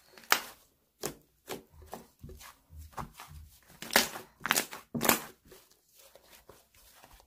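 Thick yellow slime being squeezed, kneaded and stretched by hand, giving irregular sticky clicks and pops. The clicks come thickest about four to five seconds in, then almost stop.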